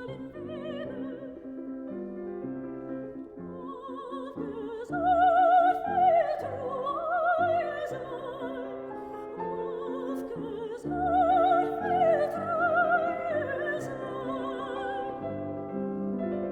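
Recorded classical art song: a soprano singing with wide vibrato over piano accompaniment. Her voice swells louder about five seconds in and again about eleven seconds in.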